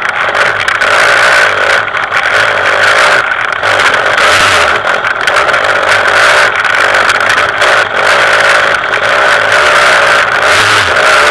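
KTM 200 EXC two-stroke enduro engine running and revving up and down as the bike rides a rough dirt trail, with knocks and clatter from the bumps.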